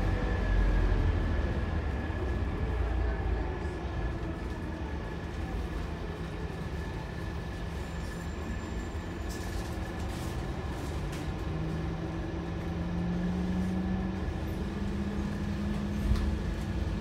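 Scania K230UB bus's diesel engine and drivetrain heard from inside the saloon while under way: a steady rumble with a constant high whine, the engine note climbing from about ten seconds in as the bus picks up speed. A few light rattles, and a single knock near the end.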